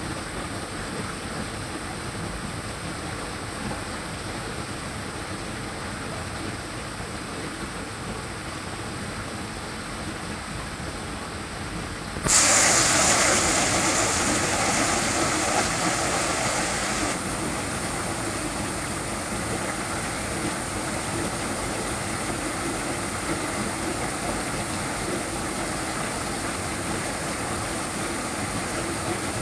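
Steady rushing of water at a small waterfall. About twelve seconds in it abruptly turns louder and brighter, then steps partly back down about five seconds later.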